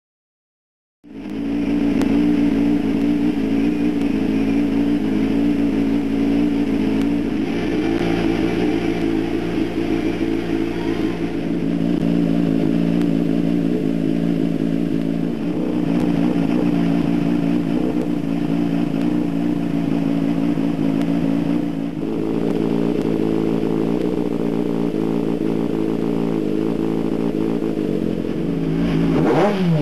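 Suzuki GSX-R250R's 250 cc inline-four, fitted with Keihin FCR28 flat-slide carburettors and a full aftermarket exhaust, starts running about a second in and idles steadily. Near the end it begins to rev up.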